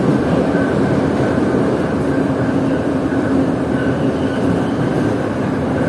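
Metro train running: a steady rumble of wheels and running gear with a constant low hum and a fainter higher whine that comes and goes.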